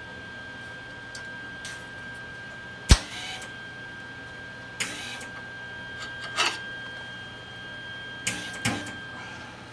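MIG welder striking a few brief arcs on a steel plate: five short crackling bursts, the sharpest about three seconds in, over a steady high whine.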